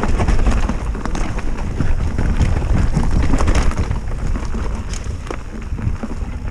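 Specialized Stumpjumper mountain bike ridden fast down a dirt and root downhill trail: tyres rolling and crunching over rough ground under a heavy rumble of wind on the microphone, with constant small clicks and knocks from the bike rattling over the bumps.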